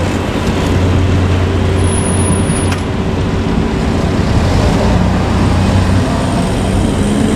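JR Kyushu KiHa 200 diesel railcar's engine running with a steady low drone.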